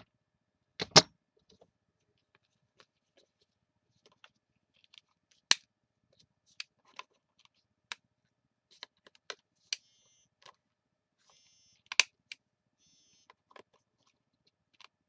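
Sharp snaps of a corner rounder punch cutting a card's corners: three loud clicks spread over the stretch, among many lighter clicks and a few short rasps.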